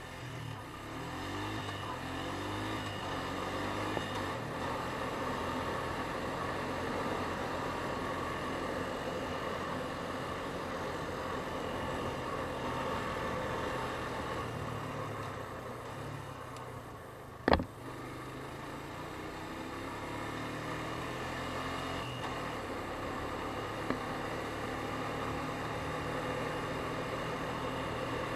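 ATV engine running as the quad drives down a trail, picking up revs in the first few seconds and then holding steady. A single sharp knock about two-thirds of the way through is the loudest moment.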